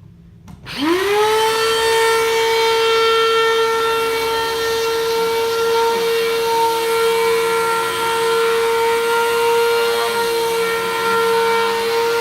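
Bissell vacuum cleaner switched on: its motor spins up with a fast rising whine about a second in, then runs at a steady high-pitched hum.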